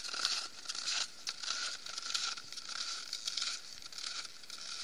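Footsteps crunching in snow at a steady walking pace, a crunch roughly every half second or so.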